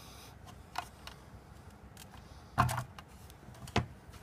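Clicks and knocks of a drive chain and motor being worked by hand onto a sprocket: three short knocks, the loudest about two and a half seconds in.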